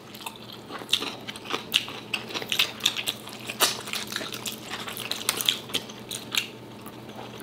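Close-miked eating by hand: wet chewing, lip smacks and finger sucking, with many small irregular clicks from fingers working through food on the plate.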